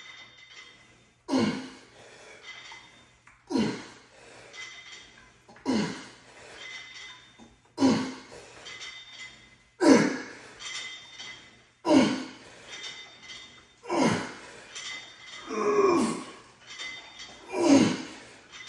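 A man breathing out hard with a short grunt that falls in pitch on each rep of a cable exercise. It comes about once every two seconds, nine times.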